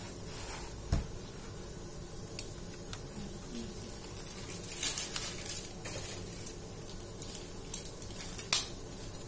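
Banana leaves being folded and handled into a fish parcel: leaf rustling and crackling with scattered small clicks, a dull knock about a second in and a sharp click near the end, over a low steady hum.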